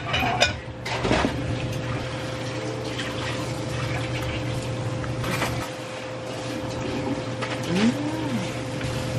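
Eating sounds: wet chewing and a metal spoon clicking against a bowl, over a steady low hum. A brief hummed "mm" comes near the end.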